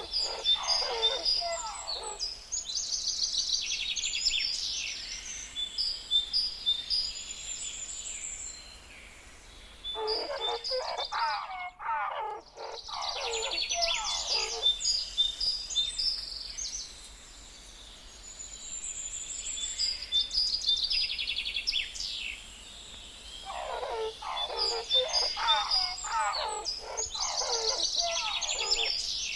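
Sound-designed calls meant for Nanotyrannus lancensis. Clusters of quick falling chirps alternate with higher, rapid twittering trills, and the sequence repeats about every 12 seconds like a loop.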